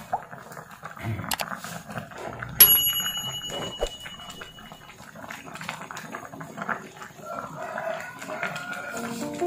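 Wooden spoon stirring cabbage in a pot of boiling soup: soft knocks and scrapes, with one sharp clink that rings on for a couple of seconds about two and a half seconds in.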